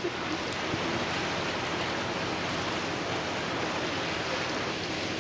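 Steady rushing of water and engine noise aboard a passenger boat under way on a lake.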